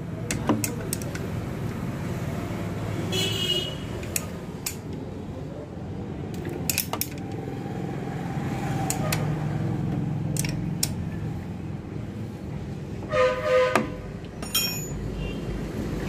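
Scattered metal clinks of a spanner working a nut on a motorcycle starter motor, over a steady background hum. A vehicle horn sounds briefly about thirteen seconds in.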